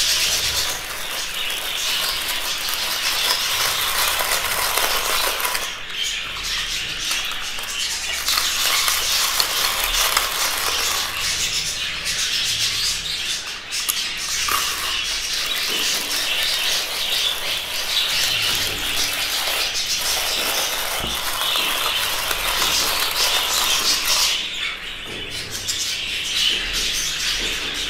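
A roomful of budgerigars chattering and chirping over the rasping, rattling turn of a hand-cranked rotary grater shredding boiled eggs.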